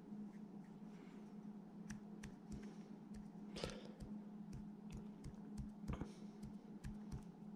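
Faint, irregular small clicks and taps as fingers handle a plastic bristleworm trap and drop bait pieces into it, over a steady low hum.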